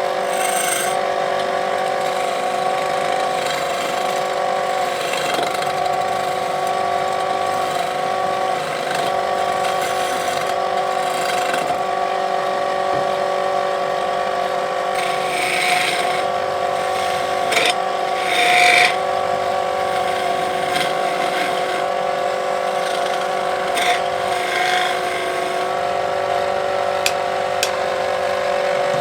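Wood lathe motor running with a steady hum, while a turning tool cuts into the spinning wood in short scraping bursts, the loudest about a third and two thirds of the way in.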